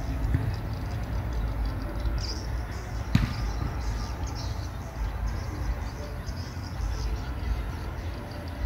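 Wind buffeting the microphone in gusts, a low rumbling flutter that rises and falls, with a single sharp click about three seconds in.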